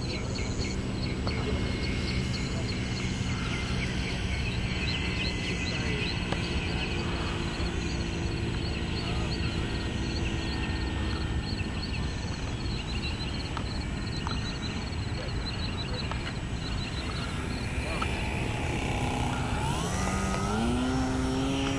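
Electric motor and propeller of a Top Flite P-40 RC warbird whining in flight, a steady tone that rises sharply in pitch near the end as the plane comes in low over the runway. Steady chirping sits in the background.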